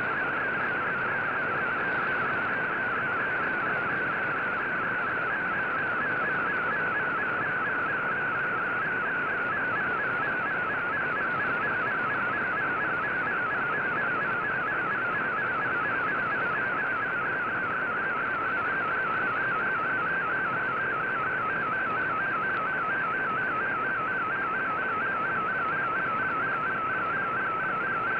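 Shortwave digital-mode data signal from a VOA Radiogram transmission: a narrow band of rapidly warbling, hopping tones running steadily over constant receiver hiss and static.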